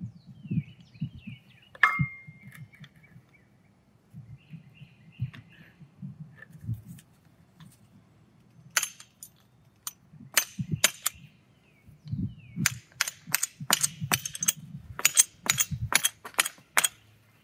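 Hammer striking steel concrete anchors through a gate hinge plate into a rammed-earth pillar. There is one ringing strike about two seconds in and a few scattered blows, then a quick run of strikes, two to three a second, over the last five seconds.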